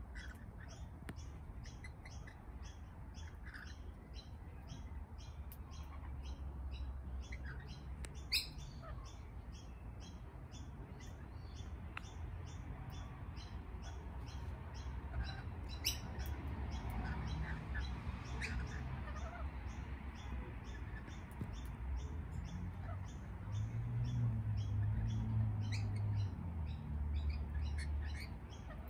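Lorikeets feeding, with brief chirps and a few sharp squawks, the loudest about 8 and 16 seconds in. Underneath runs an even, rapid high-pitched pulsing of about three beats a second, over a low rumble.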